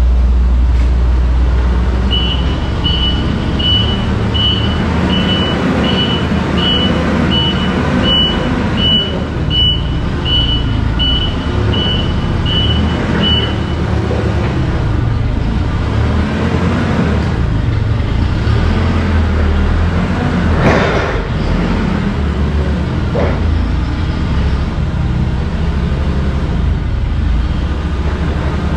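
A vehicle engine running with a steady low rumble while a reversing alarm beeps at an even pace, about three beeps every two seconds, from about two seconds in until about halfway through. About twenty seconds in there is one brief loud whoosh.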